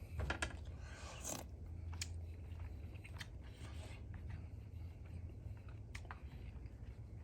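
Faint eating sounds over a bowl of beef goulash: scattered small clicks and soft scrapes, most of them in the first second and a half.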